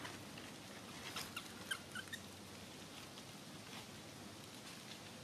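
A few faint, short, high squeaks from a baby macaque about one to two seconds in, mixed with light clicks.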